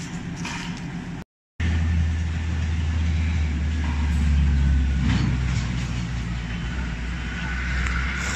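Floating solar aeration pump running in the pond with a steady low hum. The sound cuts out briefly just over a second in, then comes back louder and steady.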